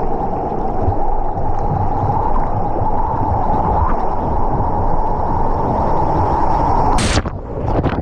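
Rushing, churning water of a wild-river water-slide channel carrying a rider, a loud steady wash. About seven seconds in, a sudden splash, after which the water sound drops quieter.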